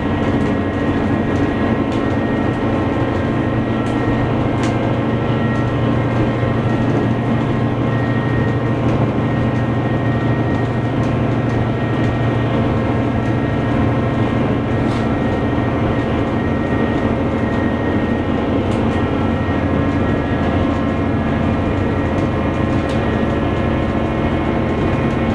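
Super Soya limited express, a KiHa 261 series diesel train, heard from inside while running: a steady drone of diesel engine and rail noise, with a few faint clicks.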